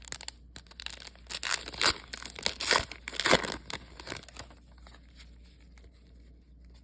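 A trading card pack's wrapper being torn open and crinkled, a run of ripping and rustling noises for about the first four seconds, then much quieter handling.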